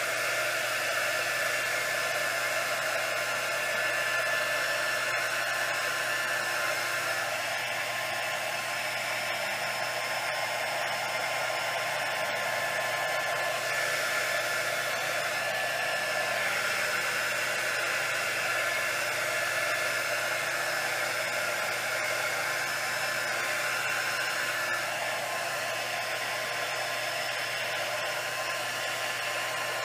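Small handheld craft heat gun running steadily, its fan blowing hot air with a faint whine, as it is played over freshly poured resin to heat it.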